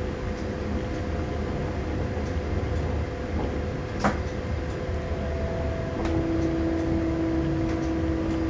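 Regional train running along the track, heard from inside: a steady low rumble with a steady hum. There is a single sharp click about four seconds in, and a second, lower hum joins about six seconds in.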